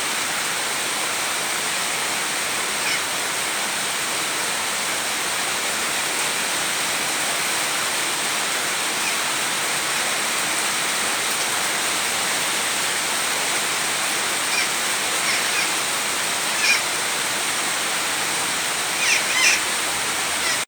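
Steady rain falling in a forest, an even rushing noise, with a few short, high bird calls that come mostly in the last several seconds, the loudest near the end.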